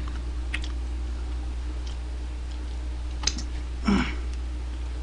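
Steady low electrical hum with a few faint scattered clicks, and a brief vocal sound about four seconds in.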